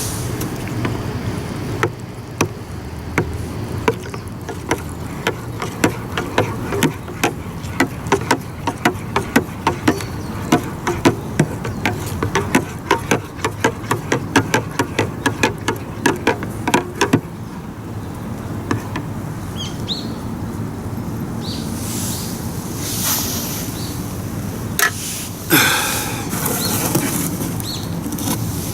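A run of sharp knocks, several a second and uneven in strength, that stops about two-thirds of the way through; after it a few scattered knocks, one louder knock near the end, and a steady outdoor background.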